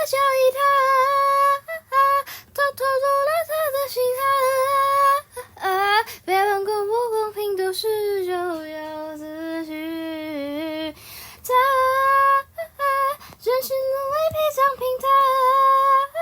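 A high-pitched solo voice singing long held notes with vibrato, dropping lower in the middle and breaking off briefly a few times.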